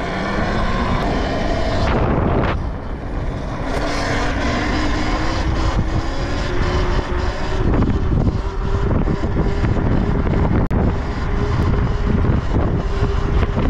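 Talaria Sting electric dirt bike's motor whining as it rides, the whine rising slowly in pitch as the bike gathers speed and then holding a steady tone, over a constant rush of wind and road noise.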